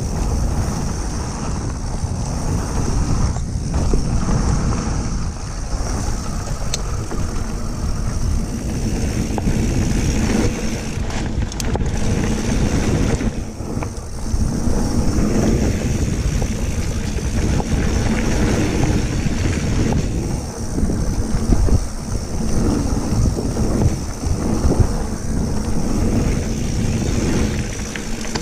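Mountain bike riding fast down a dirt flow trail: wind buffeting the action-camera microphone over the rumble of knobby tyres rolling on the dirt, swelling and easing with the speed.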